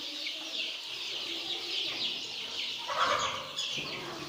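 A flock of baby chicks peeping continuously, many short high-pitched downward-sliding cheeps overlapping, with a louder, harsher burst about three seconds in.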